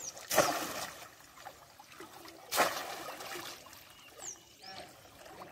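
Two splashes as a woven bamboo fish trap is plunged into shallow water, about a third of a second in and again a little past two and a half seconds, each trailing off into water running and dripping.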